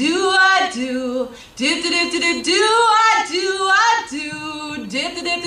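A single voice singing unaccompanied into a microphone, with long held notes that slide up and down and a brief pause for breath about a second and a half in.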